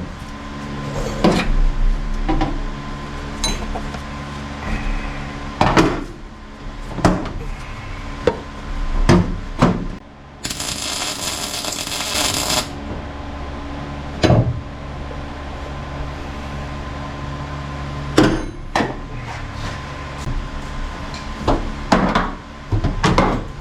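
Hammer striking a car's sheet-metal floor pan to pound the seam down flat and close the gaps before welding: single blows spaced a second to several seconds apart over a steady shop hum. About ten seconds in comes a two-second burst of hissing noise.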